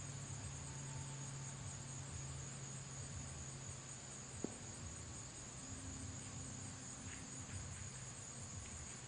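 Insects calling in a steady high-pitched drone, over a low hum, with a single short click about four and a half seconds in.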